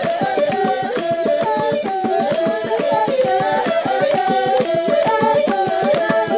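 Recorded African pygmy music: several interlocking melodic parts in short repeated notes over a fast, steady percussive pulse.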